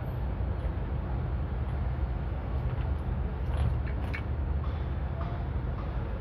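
Steady low rumble of outdoor background noise, with a few faint ticks about three and a half and four seconds in.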